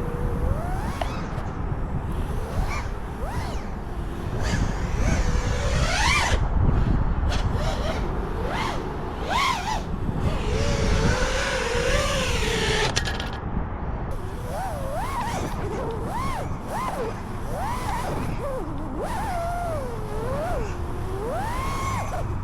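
FPV freestyle quadcopter's brushless motors and propellers whining, the pitch sweeping up and down again and again as the throttle is punched and chopped through flips and rolls, over a rush of air.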